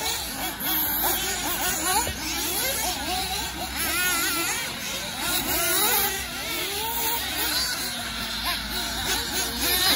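Several nitro RC race buggies running around the track, their small two-stroke glow engines buzzing and rising and falling in pitch as they accelerate and back off through the corners, overlapping one another.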